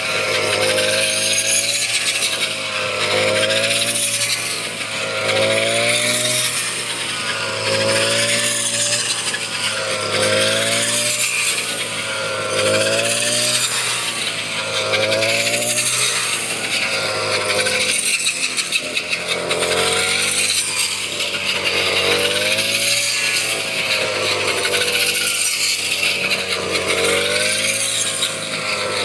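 Engine-driven harvesting machine running in the wheat. Its pitch rises and falls in a regular cycle about every two seconds, over a steady low hum and a rustling hiss.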